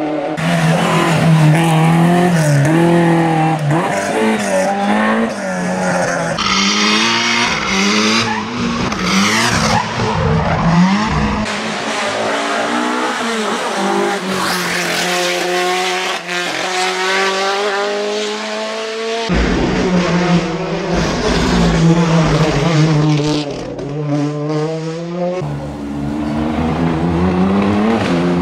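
Hill-climb race car engines revving hard, their pitch climbing and then dropping back at each gear change, as the cars accelerate past up the course.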